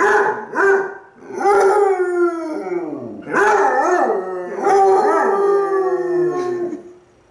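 Two basset hounds howling at each other: a short yelp, then long howls that slide down in pitch, with the two voices overlapping and wavering in the second half before stopping near the end.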